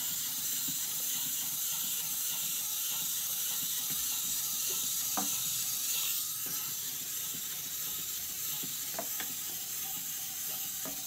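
Clockwork motor of a small plastic wind-up walking toy running after being wound, a steady fast whirring with a few faint clicks.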